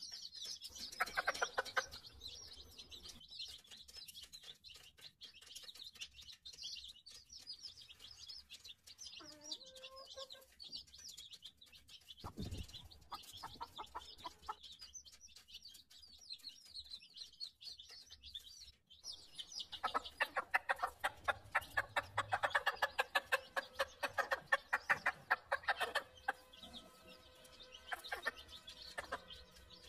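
A brood of chicks peeping continuously in high, overlapping chirps, with an adult chicken clucking in rapid runs near the start and again for several seconds about two thirds of the way through. A single low thump comes near the middle.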